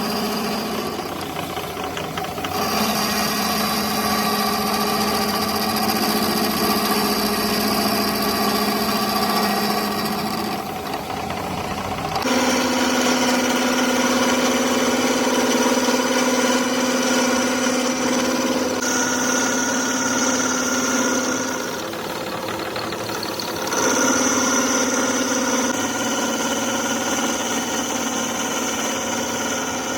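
Workshop machinery running steadily with a pitched hum and whine. The pitch and mix change abruptly several times, at about two and a half seconds, twelve seconds, and around nineteen to twenty-four seconds.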